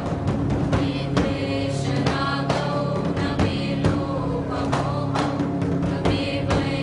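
Sanskrit devotional chant music: voices singing over a steady held drone, with drum strokes about twice a second.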